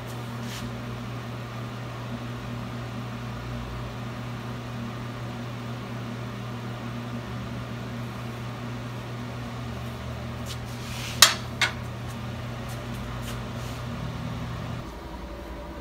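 Low, steady machine hum. About eleven seconds in, two sharp metal clanks come as the welded steel shaft is knocked against the steel weld table. The hum drops away near the end.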